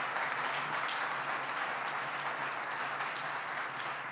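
Audience applauding, a dense spread of many hands clapping that slowly dies down.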